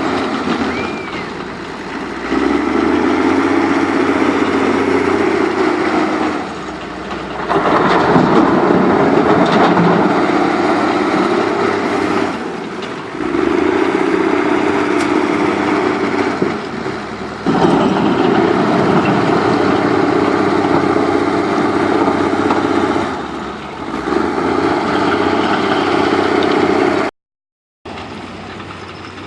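Backhoe loader's diesel engine working, its note rising under load in repeated spells about every five seconds and easing off between them, as it does on each dig-and-load cycle. The sound cuts out for a moment near the end.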